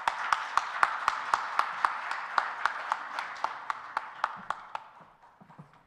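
Audience applause, with one nearby person's claps standing out sharply at about four a second over the crowd; it fades out about five seconds in.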